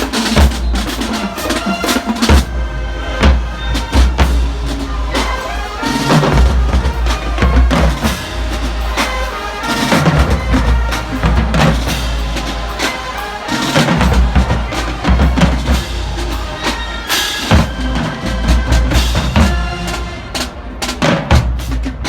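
High school marching band playing as it marches in, its drumline's bass drums and snare drums prominent in a steady beat.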